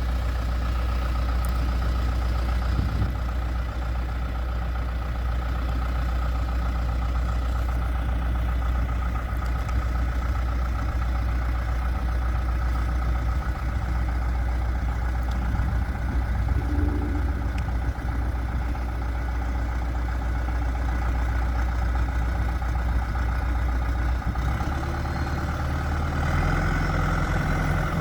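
John Deere 310SG backhoe loader's diesel engine running steadily at idle, with a shift in the engine note a few seconds before the end.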